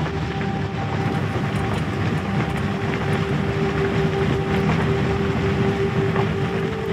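Steady road and engine noise inside the cabin of a moving car, with a sustained musical drone held underneath.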